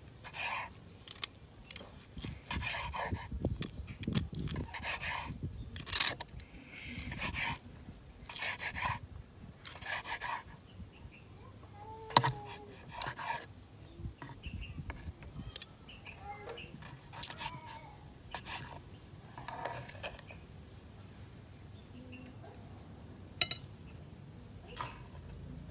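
Knife slicing through braised pork on a wooden cutting board: a series of cuts, about one a second, each a crunch through the skin and a knock on the board. The cutting then gives way to scattered sharp clicks of metal tongs and knife as the slices are moved, with faint bird chirps.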